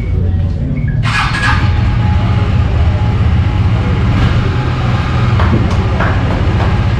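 A KTM single-cylinder motorcycle engine running, getting suddenly louder about a second in. Background music plays along with it.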